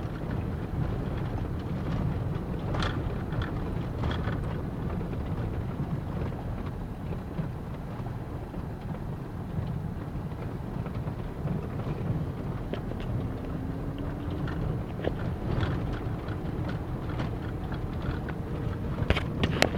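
Road noise of a moving car heard from inside the cabin: a steady low rumble with scattered knocks and rattles, which come thicker near the end.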